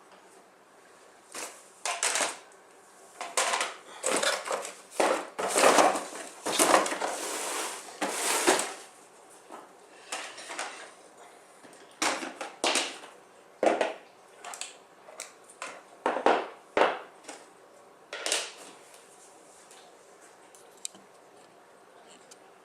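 Things being handled during unboxing: a run of irregular rustles, crinkles and light clattering knocks, densest in the first half and sparser later, stopping a few seconds before the end.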